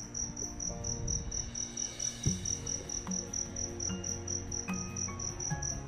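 A cricket chirping steadily: a fast, even run of high chirps, about five a second.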